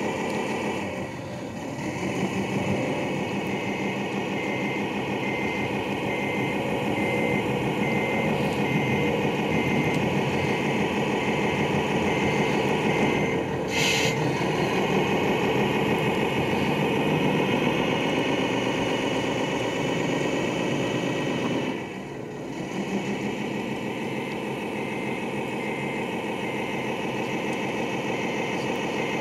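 Engine sound of a radio-controlled MAN truck tractor running under load as it tries to pull its trailer free from snow. It drops back briefly about a second in and again about two-thirds of the way through, with a single sharp click about halfway and a faint high pulsing tone underneath.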